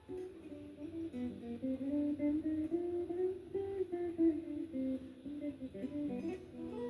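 Guitar played solo: an improvised single-note melody, with picked notes stepping up and down.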